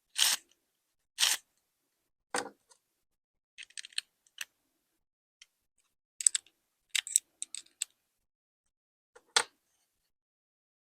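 Scattered short clicks and rattles in small groups, with dead silence between them; no saw running.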